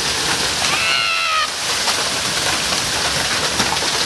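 Heavy hail mixed with rain pelting down in a steady hiss. About a second in there is a short high-pitched cry.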